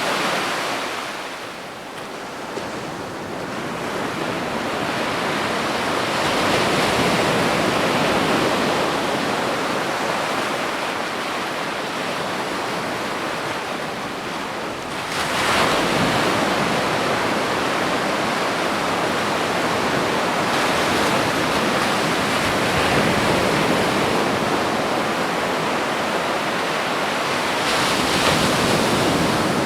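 Ocean waves breaking on a beach: a steady wash of surf that eases off about two seconds in and swells again with a new wave breaking about halfway through.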